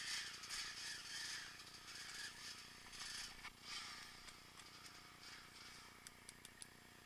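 Mountain bike riding down a rough dirt singletrack: the bike rattles and the tyres rush over the ground in uneven surges, with a few quick sharp ticks near the end.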